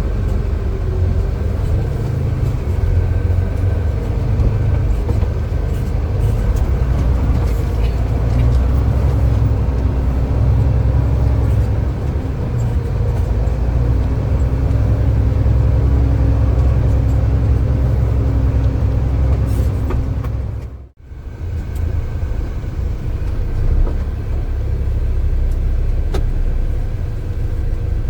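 Heavy diesel earthmoving machinery, dump trucks and excavators, running with a steady low rumble. The sound dips out briefly about three quarters of the way through and comes straight back.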